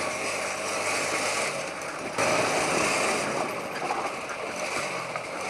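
TVS Apache RTR 180 motorcycle's single-cylinder engine running steadily while the bike is ridden up a rough dirt trail, a little louder from about two seconds in.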